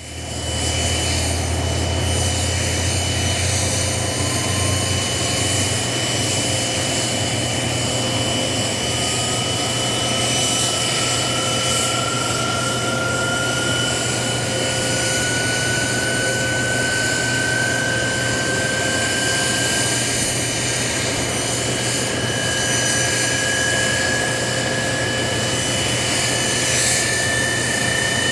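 Turbine aircraft engines running steadily with a high whine, and a second whine slowly rising in pitch.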